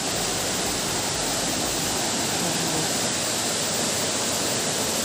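A tall waterfall crashing down, a steady, loud rush of falling water.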